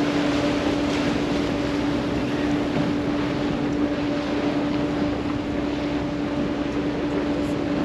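Wooden speedboat's engine running at a steady cruising speed, a constant hum at one pitch, with a rush of wind and water noise over it.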